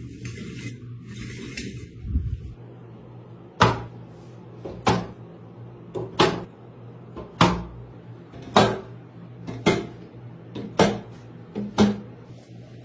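A run of eight sharp clicks or knocks, about one a second, over a faint steady hum.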